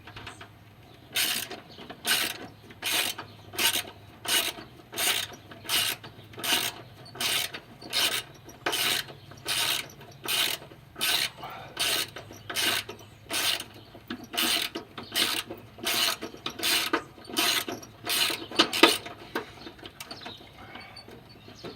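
Socket ratchet wrench being worked back and forth on a bolt of the ignition coil bracket, a short burst of ratchet clicks on each back-stroke, a little over one stroke a second, stopping a couple of seconds before the end.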